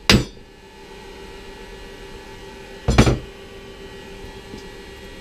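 Sharp metallic hammer blows on the housing of a BMW R1200GS final drive during disassembly: one strike right at the start and a second single strike about three seconds in, over a faint steady hum.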